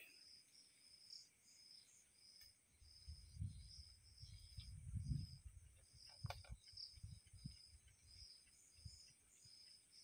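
Faint, near-silent night ambience: a cricket chirping in short, even pulses about twice a second over a steady high insect whine. Low muffled rumbles come through the middle.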